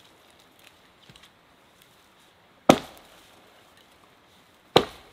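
Axe chopping into a dead leaning tree trunk: two sharp strikes, the first about two and a half seconds in and the second near the end, each ringing briefly.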